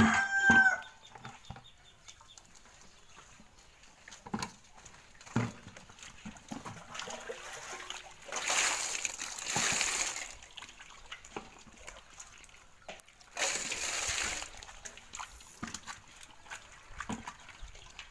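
A rooster crows right at the start, the loudest sound. Then water sloshes and splashes twice, for about two seconds and then about a second, as hands work through a basin of small fish in water, with scattered small knocks between.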